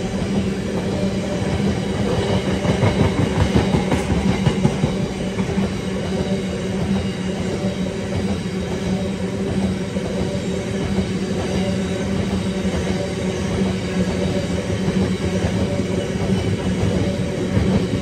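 A long train of Drax biomass hopper wagons rolling past at speed: a steady rumble and clatter of wheels on the rails, with a steady low hum underneath.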